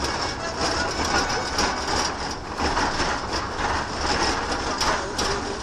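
Steady rumble and hiss of a car's cabin on the road, with scattered light knocks and rattles.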